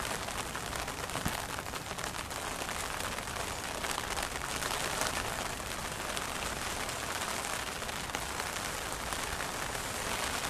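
Steady rain falling on a surface: an even hiss of many small drops.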